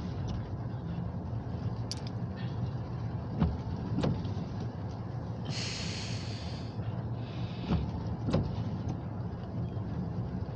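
Freight cars of a grain hopper train rolling slowly past, their wheels clicking over rail joints in pairs every few seconds, over a steady low engine hum. A brief hiss comes about six seconds in.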